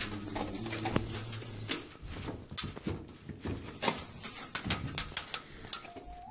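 Horizontal window blind slats clicking and rattling as they are handled, in irregular sharp clicks.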